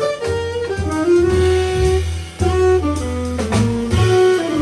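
A live jazz band with a saxophone playing the lead melody in short stepping notes, backed by upright bass, drum kit, piano and electric guitar.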